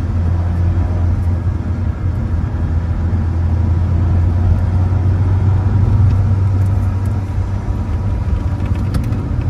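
A car's engine and tyres heard from inside the cabin as it is driven through corners on a wet track: a steady low drone with road noise, swelling a little mid-way.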